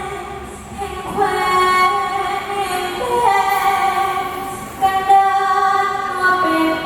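A woman singing a Thai song in a likay-heroine style, drawing out long held notes that step from pitch to pitch.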